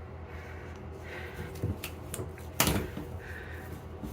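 Dryer vent cleaning rods being handled in the vent duct: a few light knocks and clacks, the loudest about two and a half seconds in, over a low steady hum.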